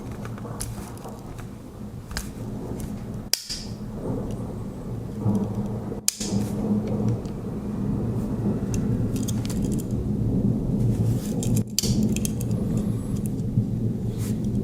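Small metallic clicks and jingles from a Swiss Army knife with aluminium Alox scales being handled, over a steady low rumble.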